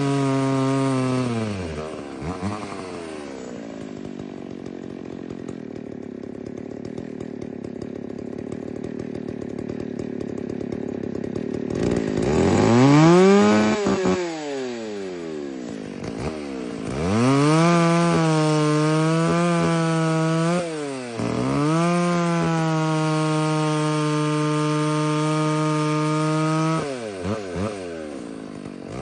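McCulloch Pro Mac 605 two-stroke chainsaw running: it drops from high speed to idle, idles for about ten seconds, is blipped up and down, then held at high revs for about ten seconds with short dips before falling back toward idle.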